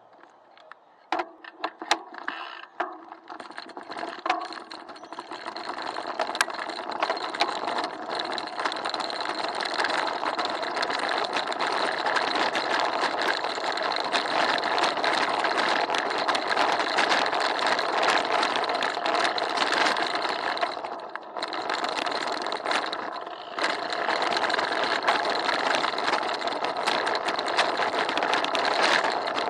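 Bicycle riding over cobblestones, heard through an action camera in a waterproof housing clamped to the handlebars: a dense, continuous rattling clatter. It begins with a few separate knocks, builds into the steady clatter over the first several seconds, and eases briefly about three-quarters of the way through.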